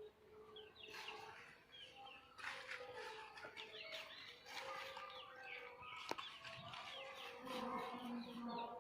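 Hens clucking softly among the chirps of small birds, with one sharp click about six seconds in.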